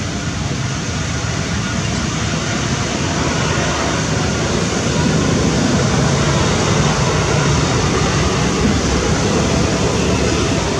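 Steady road-traffic noise from motorbikes passing on the street, growing a little louder about halfway through.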